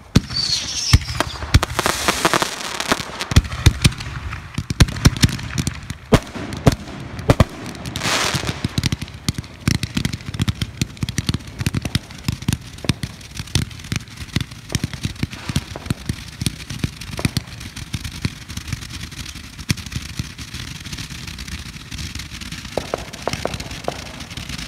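Ground-fired fireworks, many Roman candles at once, popping rapidly as they shoot their stars up, with a dense stream of bangs and crackle and brief bursts of hissing. The firing is busiest in the first eight seconds or so, then goes on as a steadier run of pops.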